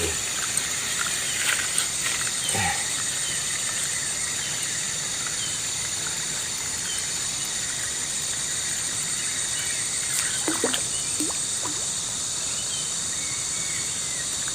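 Steady, shrill chorus of insects, with a few short falling calls from other animals about two and a half seconds in and again near ten and a half seconds.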